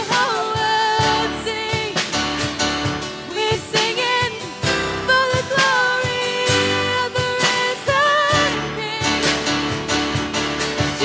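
Worship song: a solo voice singing a wavering, held melody over steady instrumental backing.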